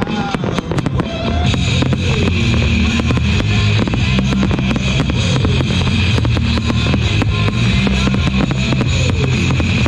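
Fireworks finale barrage: rapid overlapping bangs and crackling from many aerial shells and crackling stars bursting at once. It thickens into a continuous loud din about a second and a half in.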